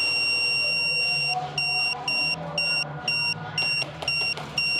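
Contour helmet camera beeping loudly with a single high tone: one long beep, then short beeps about twice a second, its warning that the memory card is full.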